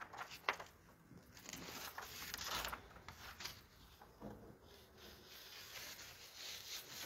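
Faint rustling and scattered small clicks and knocks in a hushed room, the sound of people stirring and handling things during a pause.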